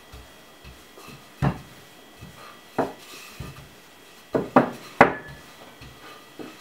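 Wooden rolling pin rolling out roti dough on a floured countertop, knocking against the counter about five times with softer rubbing and tapping between.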